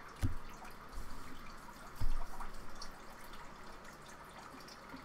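Handling noise: a few dull low thumps, the loudest about two seconds in, with scattered faint clicks, as hands move a trading card about close to the camera.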